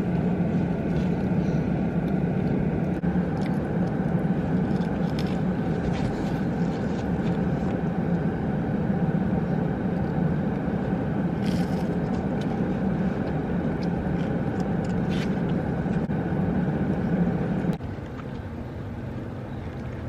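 Steady car running noise with a low hum. It cuts off suddenly near the end, leaving a quieter background.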